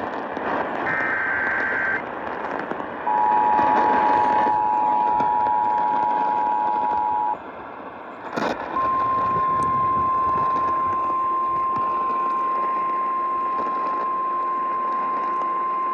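Emergency Alert System tones over AM radio static: the end of the warbling digital data header about a second in, then the two-tone attention signal for about four seconds, a short break with a click, and then a single steady alert tone in the style of NOAA Weather Radio, announcing a tornado warning.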